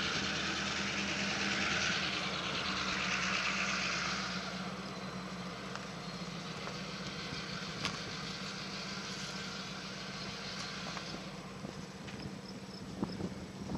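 A motor vehicle's engine with a steady low hum, under a louder rushing noise over the first four seconds that then dies away, and a few faint knocks.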